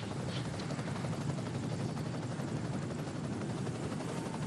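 Steady low rotor drone of a race-coverage helicopter, a fluttering chop running evenly.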